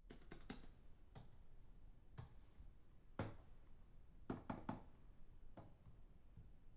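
Computer keyboard typing heard from a distance in a small room: faint, irregular key clicks, some single and some in quick clusters of two or three, over a low room hum.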